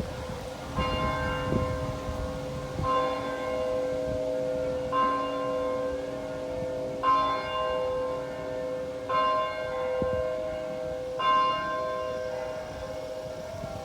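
Church bell tolling, one stroke about every two seconds, six strokes in all, each stroke's hum ringing on under the next.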